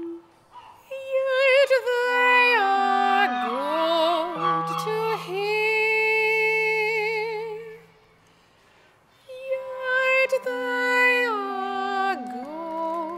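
A soprano singing sustained notes with vibrato over a clarinet's steady lower notes. Both stop together for about a second past the middle, then start again.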